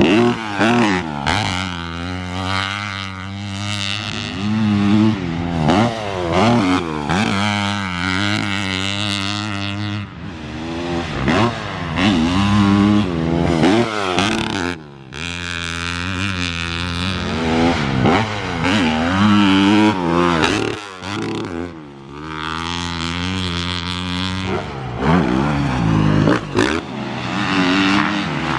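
Motocross dirt bike engine revving up and down over and over as the throttle is opened and shut through jumps and corners, with a couple of brief lulls.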